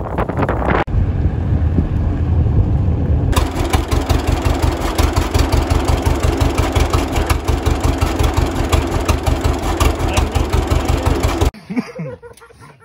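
Old John Deere tractor engine running just after starting, smoking, with a rapid even beat of exhaust pulses. The beat turns sharper and louder about three seconds in and cuts off suddenly near the end.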